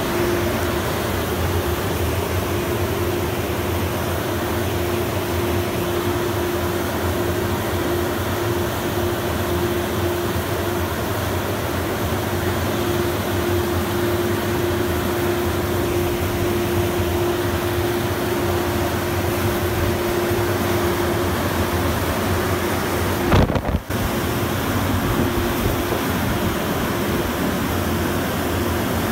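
Car-wash blower dryer running: a loud, steady rush of air with a constant hum from the fan motors as a car moves out beneath the nozzles. It is briefly broken by a short knock and drop-out near the end.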